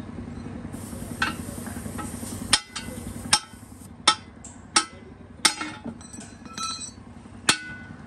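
Hand hammer striking a steel tyre lever against a truck wheel's steel rim: about six sharp metallic clanks with ringing, at uneven intervals, starting about two and a half seconds in.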